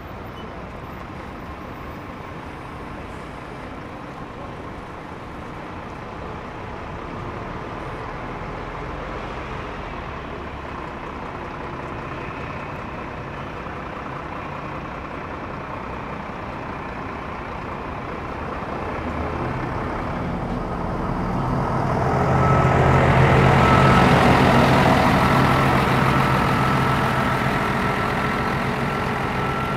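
Steady traffic hum, then a heavy motor vehicle's engine approaches and passes. It is loudest about three-quarters of the way through and fades toward the end.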